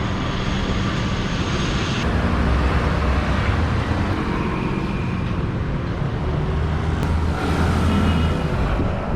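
Street traffic: a steady rumble of passing vehicles' engines and tyres, swelling a little twice as vehicles go by.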